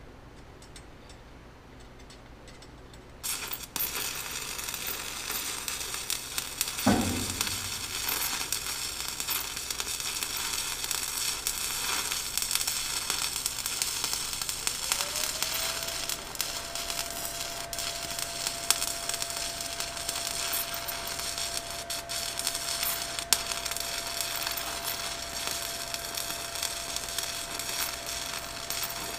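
Stick (arc) welding: the arc strikes about three seconds in and then burns with a steady crackling sizzle as a stitch weld is laid. A thin steady tone joins about halfway through.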